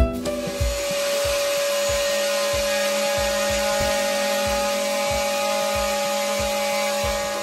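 Handheld power tool with a vacuum extraction hose attached, running steadily against wall tile: an even hiss with a constant hum.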